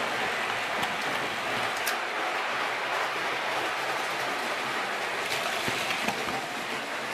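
Gauge 0 model train (electric locomotive and tank wagon) rolling along metal track: a steady rumbling whir of wheels and motor, with a few light clicks.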